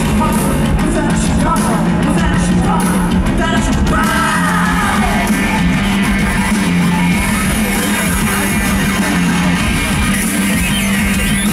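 Live rock band playing loudly, with a male singer's voice sung and shouted over a steady, heavy bass line.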